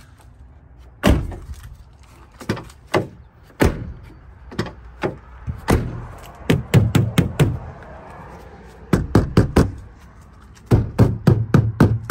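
Door of a 2001 Ford F-350 pickup shut about a second in, then a hand knocking and rapping on the steel door skins, single raps and then quick clusters of them. The doors are being tested for how hollow they sound before sound-deadening mat is fitted.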